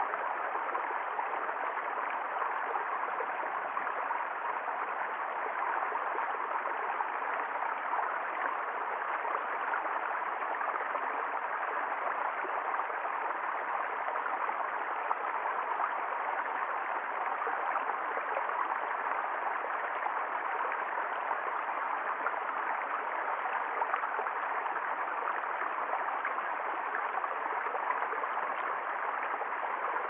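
Small rocky forest brook running steadily over stones, a continuous rush and gurgle of water.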